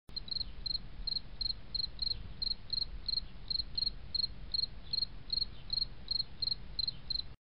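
Short, high insect-like chirps, about three a second, over a low rumble; they cut off suddenly near the end.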